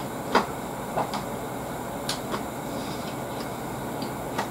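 A person chewing a lettuce-wrapped burger: a handful of separate short wet smacks and clicks, the loudest about a third of a second in, over a steady background hiss.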